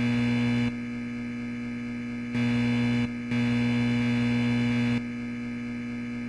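Electrical hum of a flickering circular fluorescent lamp fixture, a steady low mains hum that jumps louder and drops back abruptly several times as the failing tube flickers.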